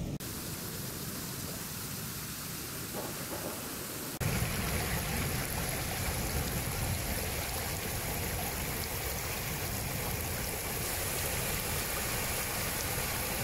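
Steady hiss of water on a flooded road, then, about four seconds in, a louder steady rush as muddy floodwater spills over a road edge in a small cascade.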